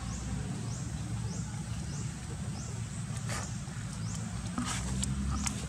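Outdoor forest ambience: a steady low rumble, with a faint, high, short rising chirp repeated several times in the first half and a few sharp clicks and rustles in the second half.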